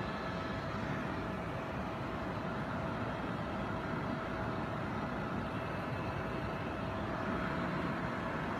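Helicopter in flight, heard from inside the cabin: a steady engine and rotor drone with a constant faint whine over it.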